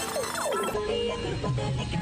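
Background music with a gliding melody, which changes abruptly to a different piece about three-quarters of a second in.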